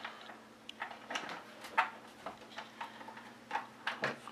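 A thumb screw being turned in by hand to fasten an acrylic side panel to a PC case: scattered small clicks and light scraping of metal on the case, the sharpest click a little under two seconds in.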